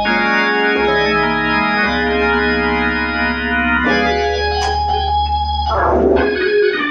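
Hammond B3 organ played through a Leslie 122 rotating speaker, freshly repaired and sounding as it should: full sustained chords over a held bass, changing chord about a second in and again about four seconds in, with a wavering, gliding passage near the end.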